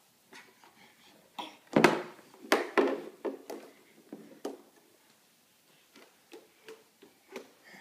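A plastic baby bottle and a doll knocking and bumping on a hardwood floor: a string of sharp knocks, loudest about two seconds in, thinning to lighter taps in the second half.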